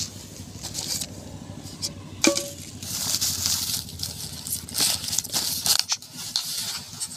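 Plastic bags and rubbish rustling as hands rummage through a litter pile, with a short ringing metallic clink about two seconds in.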